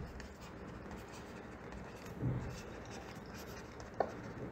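Faint scratching of a stylus writing on a tablet or pen screen. There is a short low sound about two seconds in and a single sharp click near the end.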